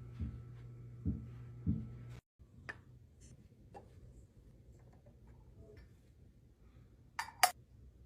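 Light knocks and clicks of household items being handled and set down, over a low steady hum that cuts off about two seconds in. Two sharp clicks near the end are the loudest sounds.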